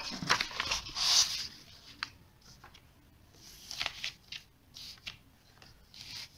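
Sheet of paper rustling and sliding as it is laid over a page of handwritten notes, loudest about a second in, followed by a few light taps and softer rustles.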